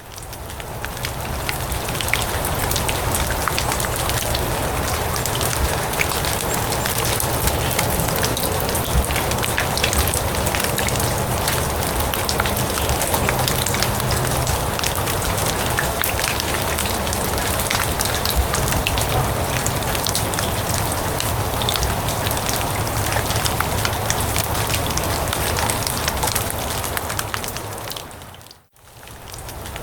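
Steady rain falling on grass and leaves, a dense hiss of fine drop ticks over a low rumble. It fades in at the start, and near the end fades out to a brief silence and back in again.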